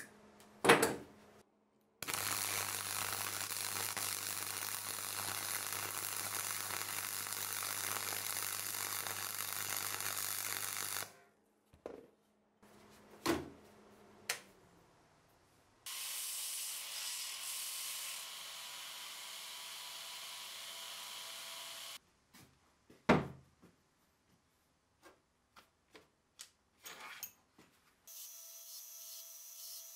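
Parkside PFDS 120 A2 flux-core wire welder: a snip as the welding wire is trimmed with pliers, then about nine seconds of steady welding noise with a low hum under it. It is followed by a few clicks at the welder as its hum dies away. Later comes another steady workshop noise of about six seconds, then a knock and several small clicks.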